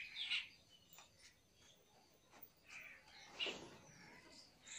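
Birds calling outdoors, with a few short calls near the start. A brief rustle comes about three and a half seconds in.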